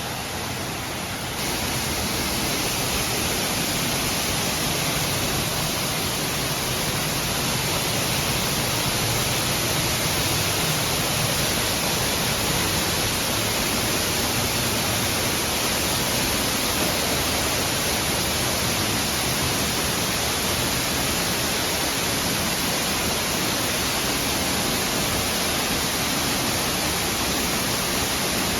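Waterfall: a steady rush of falling water, slightly louder from about a second and a half in.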